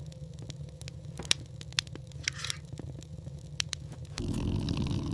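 Scattered sharp crackles and pops over a steady low rumble, with one brief hissy scrape midway. The rumble grows louder about four seconds in.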